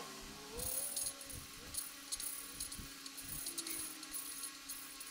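Valve being lapped into its seat with grinding compound: a gritty rasping in short, irregular strokes as the valve is twisted back and forth against the seat.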